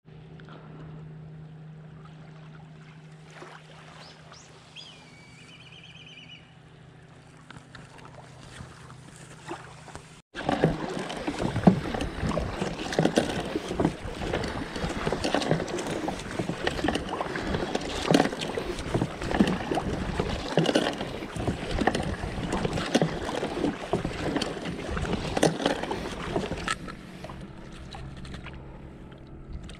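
Kayak paddling: paddle blades dip and splash in the water and water slaps the hull, an irregular run of splashes and knocks that starts suddenly about ten seconds in and eases off near the end. Before it there is a faint steady hum with a short high call.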